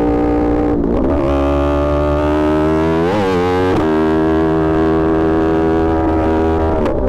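Yamaha R1 sportbike's inline-four engine running loud at a steady speed, with brief changes in revs about a second in, around three seconds in and near the end.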